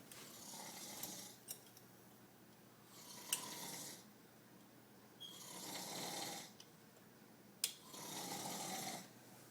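A man snoring in his sleep, with a noisy breath about every two to two and a half seconds and a few short sharp clicks between them.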